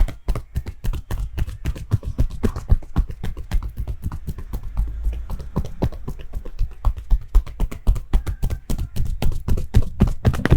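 Percussive hand massage: a barber's hands slapping and tapping on the body in a quick, uneven run of strikes, several a second.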